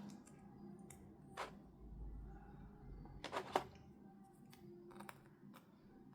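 Scattered light clicks and taps from plastic toy pieces and packaging being handled, with the loudest sharp snap about three and a half seconds in.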